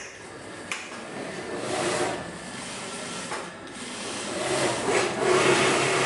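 Industrial single-needle sewing machine stitching in short runs as fabric is fed under the needle, with a sharp click under a second in and a steadier run over the last part.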